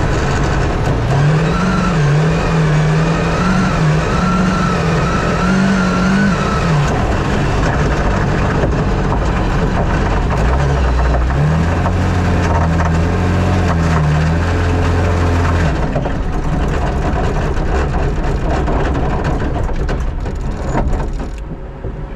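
Merkur XR4Ti rally car's engine pulling hard, its revs rising and falling again and again with throttle and gear changes, over loud road and gravel noise.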